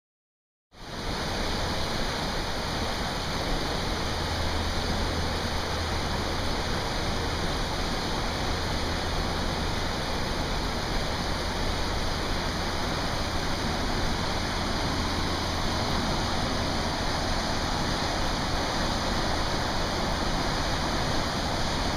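Rushing water of a rain-swollen creek in overflow, a steady even rush with a deep rumble underneath. It starts abruptly about a second in.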